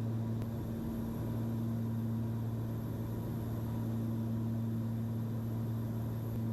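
Cessna 340's twin piston engines and propellers droning steadily in the cabin on approach: a low, even hum of unchanging pitch.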